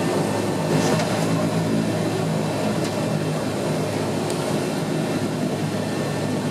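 Cabin noise of a Bombardier Dash 8-100 taxiing, its turboprop engines and propellers running steadily. It is a steady drone with a low hum.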